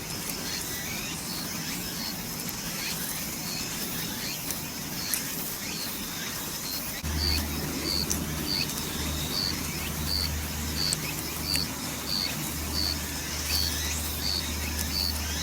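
An insect chirping steadily, a short high chirp about two to three times a second. About halfway in a low hum joins it, broken by a few short gaps.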